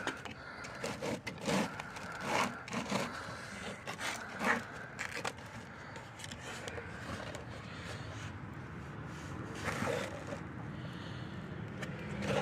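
Handling noises as a caught fish is pushed along a measuring device: a series of short scrapes and knocks, mostly in the first few seconds and again near the end.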